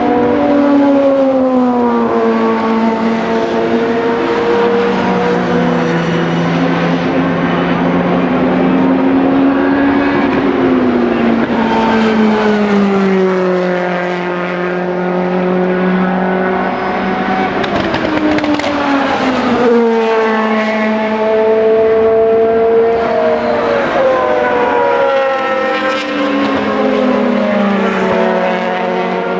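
Le Mans prototype race cars at racing speed, several engines heard at once. Their notes fall in pitch as cars go by and climb again as others come up, in waves every few seconds.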